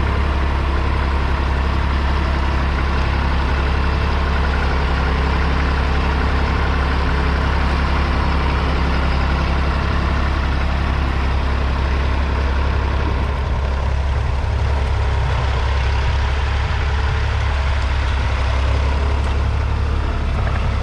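1959 Fordson Dexta's 2.4-litre three-cylinder diesel engine running steadily with a deep drone, easing slightly about two-thirds of the way through.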